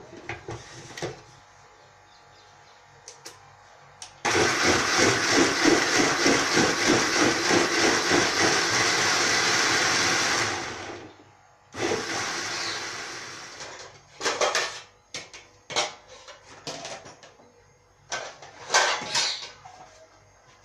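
Electric juicer-blender running hard for about six seconds, then winding down, with a second short pulse about a second later. A few clicks and knocks of the jug being handled come before and after.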